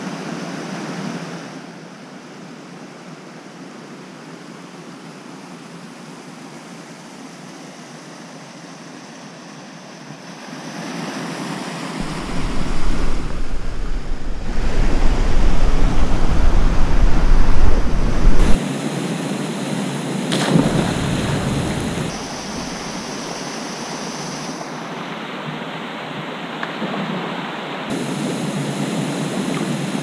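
Steady rushing of water from a waterfall and rock cascades, its tone shifting abruptly several times. It is louder, with a deep rumble, from about 12 to 18 seconds in.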